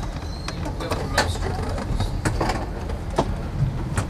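Passenger train carriage rumbling along the track, with several sharp clicks and knocks from the wheels passing over rail joints and points.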